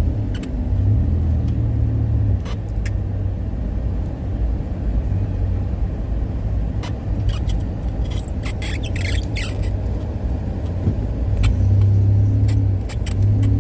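Car engine running, heard from inside the cabin as a steady low rumble, with a few light clicks.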